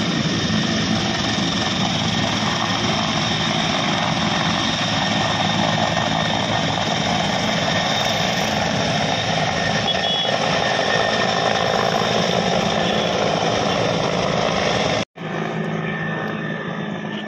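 Helicopter lifting off and climbing away, its rotor and turbine running in a loud, steady drone. About fifteen seconds in the sound breaks off for an instant and resumes fainter.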